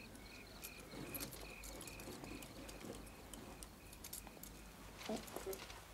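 Crickets chirping faintly in an even rhythm, about two chirps a second, fading out past the middle. Soft clicks run throughout, and a brief cluster of clicks and a rattle near the end come from venetian blind slats being pushed aside.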